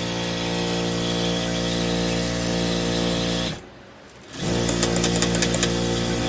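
Lockstitch sewing machine running with a steady hum. It stops for about a second a little past halfway, then starts again with quick ticking over the hum.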